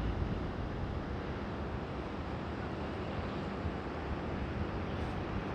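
Wind buffeting the microphone: a steady, low rumbling noise with no distinct events.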